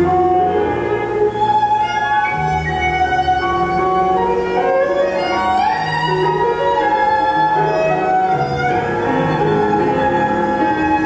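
Argentine tango music with a violin carrying the melody over sustained low bass notes, including a sliding violin phrase about halfway through.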